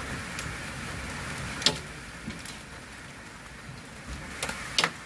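Steady rain falling, with a few sharp clicks over it: the loudest about one and a half seconds in, and two close together near the end.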